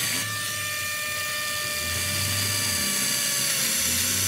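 Black+Decker cordless drill running steadily as it bores into a plywood board, a constant motor whine that dips slightly in pitch just after the start as the bit bites in.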